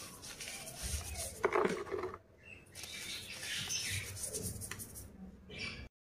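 Cloths rubbing and wiping dusty dyed gym chalk bars: soft, powdery rustling and scraping, with a louder crunchy scrape about a second and a half in and a brief lull just after. The sound cuts off suddenly near the end.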